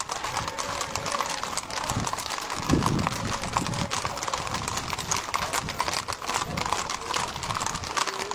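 Hooves of many ridden horses clip-clopping on an asphalt road as a column walks past, a dense, irregular patter of overlapping hoof strikes.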